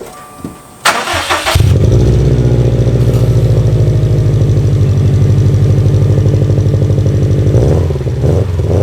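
Subaru STI's turbocharged flat-four cranks and fires about a second and a half in through an Invidia R400 exhaust, then idles steadily with an even, pulsing rumble, dropping in level near the end.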